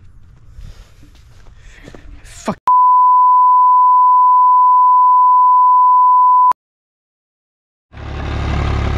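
A steady single-pitch censor bleep at about 1 kHz, lasting about four seconds, covering swearing. It cuts off into a second or so of dead silence, and then a crawler loader's engine comes in running, loud and low, near the end.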